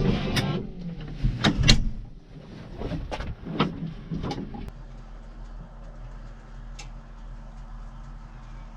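Tractor engine running, with a string of sharp knocks and clicks over the first four seconds or so, after which it settles to a quieter, steady low hum.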